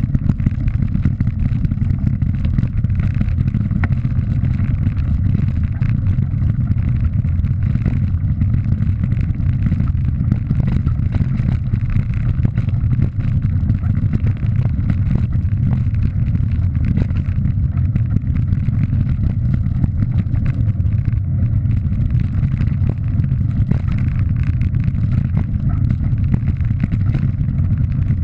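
Wind rumbling steadily on a bike-mounted action camera's microphone while riding, mixed with a continuous rattle and crunch of tyres on a loose gravel track.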